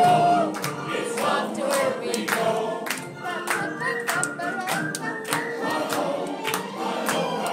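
The ride's mine-scene soundtrack: a chorus of voices singing, with sharp clinking strokes on a steady beat, about three a second.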